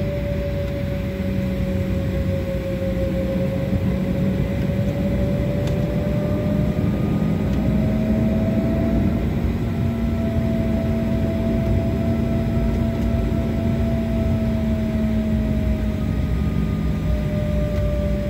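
Jet airliner's engines heard from inside the cabin while taxiing: a steady rumble with a whine that drifts slowly in pitch, rising a little about halfway through and easing again near the end.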